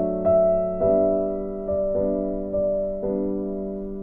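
Background piano music: a slow run of soft chords, each struck and fading before the next.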